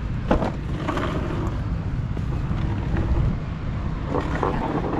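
Wind buffeting the microphone, a steady low rumble, with faint voices in the background about a second in and again near the end.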